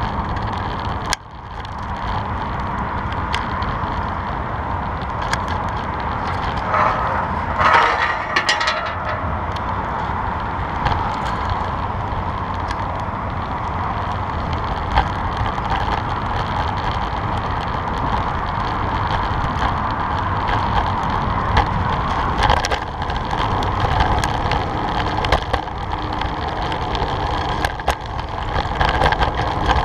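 Riding noise from a fixed-gear bicycle heard through a camera mounted on the bike: a steady rumble of tyres on concrete and asphalt with wind on the microphone, and frequent small clicks and rattles from the bike over bumps. A brief louder, higher-pitched sound comes about eight seconds in.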